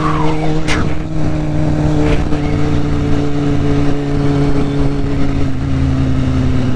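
Dirt bike engine running at a steady cruising speed, its pitch easing slightly lower over the last few seconds, with wind noise from riding.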